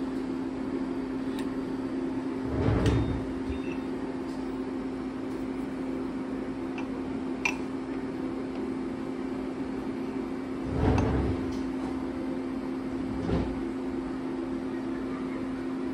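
Steady hum of a lathe and shop machinery with a pitched drone, broken by a few dull knocks and one sharp metallic click as a dial bore gauge and then a 40 H7 plug gauge are worked into the bored hole.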